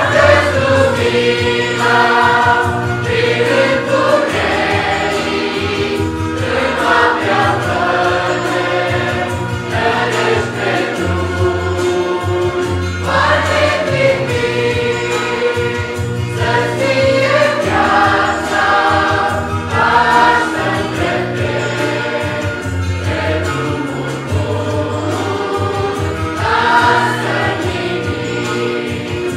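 A choir singing with instrumental accompaniment: many voices holding long notes over a steady bass line.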